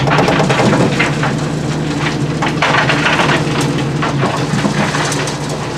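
Ore and rocks tipped from an excavator bucket into a steel hopper, a dense run of irregular rattling impacts, over the steady hum of the excavator's engine heard from inside the cab.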